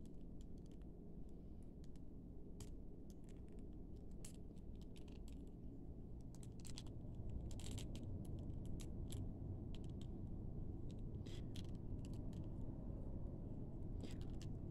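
Small, irregular plastic clicks and taps from a Roblox Noob Attack – Mech Mobility action figure being handled and posed, its parts and joints worked in the hands. A faint low steady hum lies underneath.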